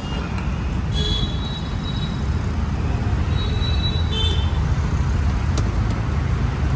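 Steady low noise of road traffic, with a few brief high-pitched tones over it about a second in and again near the middle.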